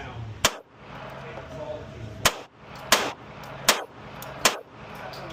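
Smith & Wesson M&P Competitor pistol fired five times in a string, the shots unevenly spaced less than a second to nearly two seconds apart, each with a short echo.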